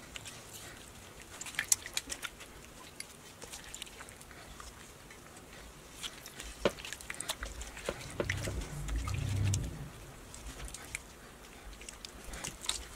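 Gloved hands rubbing raw tilapia fillets with a lemon half in a stainless steel bowl of water, cleaning the fish: faint, irregular wet squishing with small splashes and clicks. A low rumble comes about eight seconds in and lasts some two seconds.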